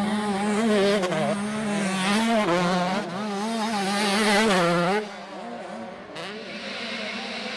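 Motocross bike engine revving up and down through the gears. About five seconds in it drops abruptly to a quieter, steadier engine drone.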